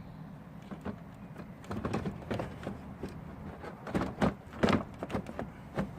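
An Audi A4 B8 headlamp unit being worked back into its opening by hand: irregular plastic clicks, knocks and scrapes, with a few louder thunks about four to five seconds in.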